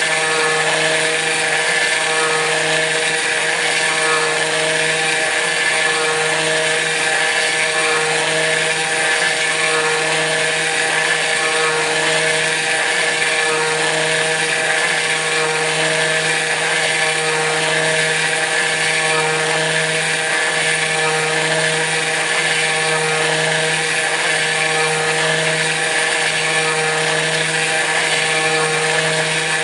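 Kress FME-1050 router running as the spindle of a CNC machine milling aluminium: a loud, steady set of tones over a strong hiss, unchanging throughout.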